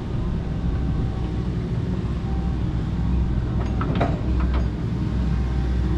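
Kobelco SK85 MSR 8-ton excavator's diesel engine running steadily under work, with a quick cluster of sharp knocks and cracks about two-thirds of the way in as it clears scrub.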